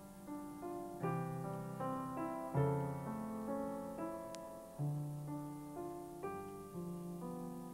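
Slow piano music: a new chord or note is struck every second or so and rings on, fading away.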